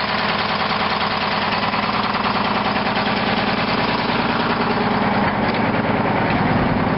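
Euclid R-22 water truck's diesel engine idling steadily.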